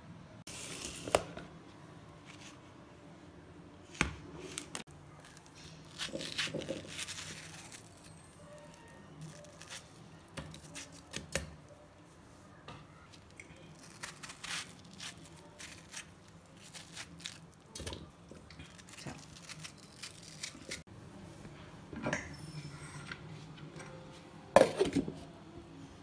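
Kitchen handling sounds: scattered soft knocks, clicks and rustles as watermelon pieces are handled and put into a stainless-steel mixer-grinder jar, with a louder clatter near the end.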